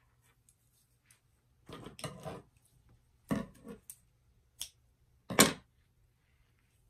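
Kitchen scissors snipping cotton cord and being handled, then set down on a wooden tabletop: a few short snips and clacks, the loudest about five and a half seconds in.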